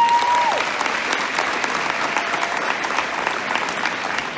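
Audience applauding steadily and slowly tapering off, with a short high whistle at the start.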